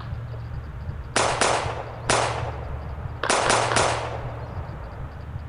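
Airsoft gun shots: six sharp cracks, each ringing on briefly. Three come about a second in, then a quick burst of three about three seconds in.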